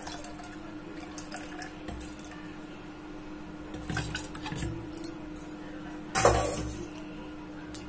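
Whey (curd water) poured into a mixer-grinder jar of yogurt and sugar, a faint liquid trickle over a steady low hum. About six seconds in comes a single loud clatter of a dish or vessel.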